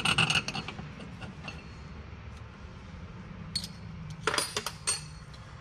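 Light metallic clinks of washers and bolt hardware being handled: a cluster right at the start, then a few more about four to five seconds in.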